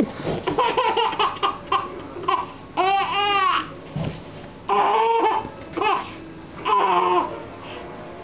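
Baby laughing and squealing in a string of short high-pitched bursts, with babbling in between.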